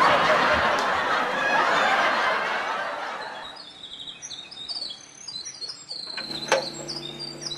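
A loud wash of noise that fades away over about three seconds, then birds chirping with many short high calls, and a single metal click from the gate's bolt being drawn near the end.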